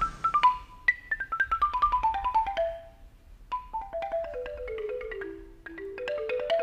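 Music on tuned mallet percussion: quick runs of struck notes falling step by step in pitch, twice, then climbing again near the end.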